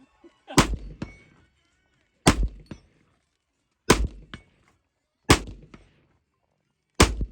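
Five rifle shots fired at a steady pace, about one every second and a half. Each shot is followed about half a second later by a fainter clang, a bullet striking a steel target downrange.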